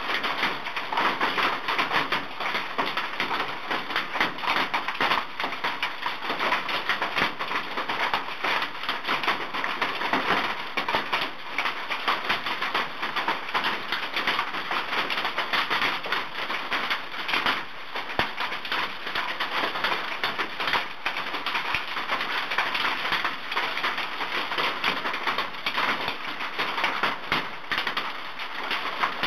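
Large hailstones pelting down hard in a very loud, dense, unbroken clatter, striking the porch roof overhead and the ground.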